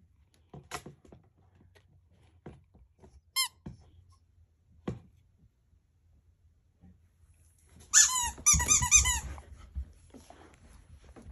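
Squeaky ball toy squeaking as a dog chews it: one squeak about a third of the way in, then a quick run of about half a dozen squeaks near the end, the loudest part. A few soft knocks of the toy are heard between.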